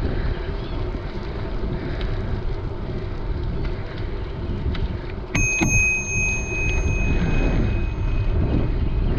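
Bicycle bell struck twice in quick succession about five seconds in, its clear tone ringing on for several seconds, rung as a warning to a pedestrian ahead on the road shoulder. Under it, steady wind rush on the microphone and tyre rumble from riding.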